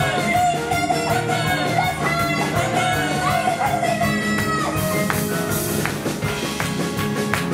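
Live band with electric guitars and drums playing an upbeat song, with women singing the melody. The singing stops about four and a half seconds in, leaving the band playing with a cymbal-like crash and sharp drum hits.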